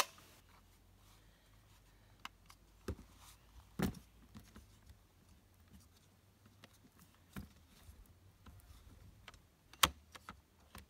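Scattered clicks and knocks of a chainsaw being handled and set down on its cardboard box. A sharp click comes at the very start, a couple of thuds about three and four seconds in, and more knocks near the end.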